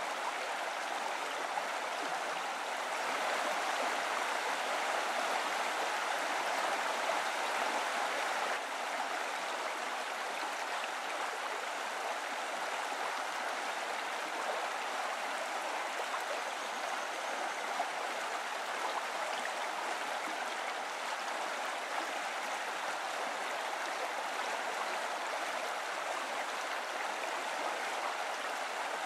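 Steady rush of flowing water, a little louder between about three and eight seconds in.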